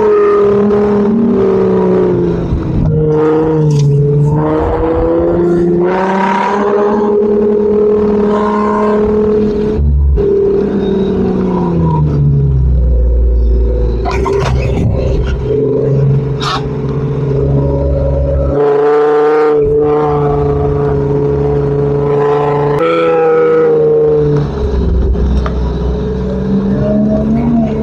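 Off-road SUV engine working hard in desert sand, its pitch holding steady for stretches and then rising and falling with the throttle.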